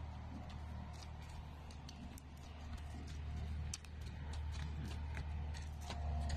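Horse walking on a muddy pasture: faint, irregular clicks and knocks of its hooves over a steady low rumble.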